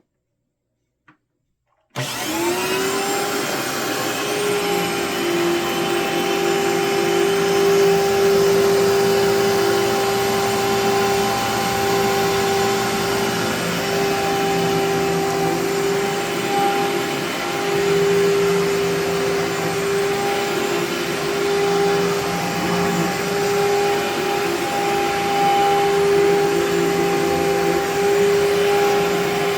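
Amway ClearTrak upright vacuum switched on: after a click, its motor starts about two seconds in, winds up to speed with a rising whine, then runs steadily.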